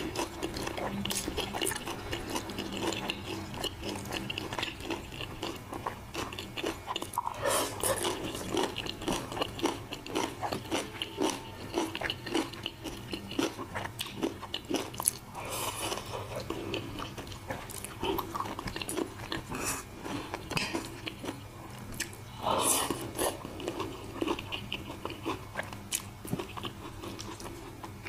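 Close-miked chewing and crunching, mouthful after mouthful, as battered crispy fried pork (guo bao rou), rice and eggplant are eaten; a few louder crunches come spaced through.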